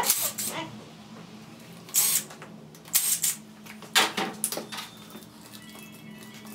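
Short, sharp metallic knocks and clatters from tools working on an automatic transmission's oil pan, four or five of them about a second apart, over a steady low hum.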